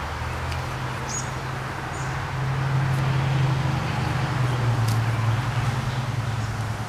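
Low engine hum, like a vehicle passing at a distance, swelling for a few seconds in the middle and then easing off, with a couple of short bird chirps.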